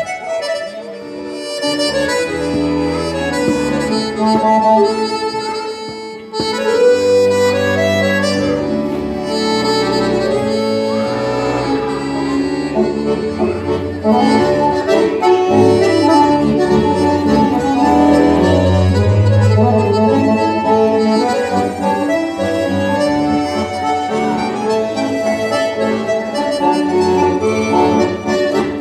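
Accordion trio playing a tune together, two piano accordions and a small button squeezebox, with steady chords and melody and a brief drop in loudness about six seconds in before the playing comes back fuller.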